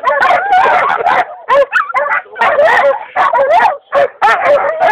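Hunting dogs barking and yelping in quick, repeated calls.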